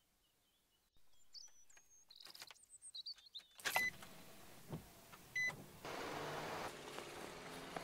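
Near silence with a few faint high chirps, then car cabin noise with two short electronic beeps from the dashboard, the seatbelt warning lit. From about six seconds in there is steady outdoor noise with a vehicle's engine as it drives up the street.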